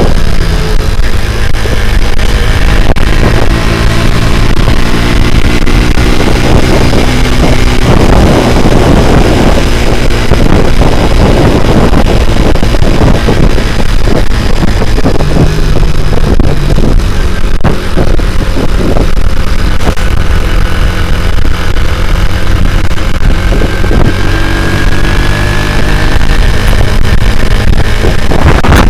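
Small single-cylinder four-stroke motorcycle engine (Honda Grand engine in a C70 frame) running at speed, its pitch climbing several times as it accelerates through the gears, under heavy wind buffeting on the microphone.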